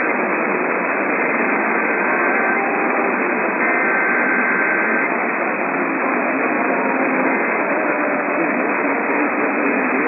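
AM radio reception with heavy, steady static hiss over the narrow-band broadcast. Faint traces of programme audio come and go underneath.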